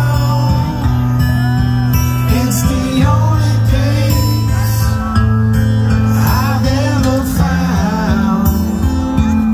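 Loud live band music over a PA: a man singing into a microphone over guitar and a heavy, sustained bass line.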